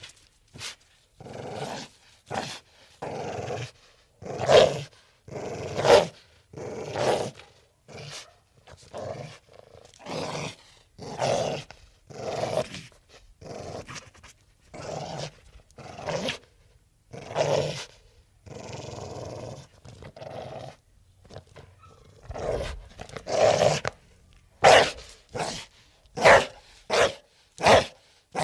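An animal growling in a long run of short, rough calls, about one a second, some much louder than others.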